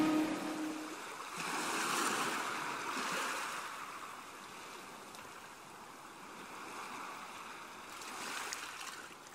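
Soft wash of sea surf, swelling twice, as the last note of the background music dies away in the first second.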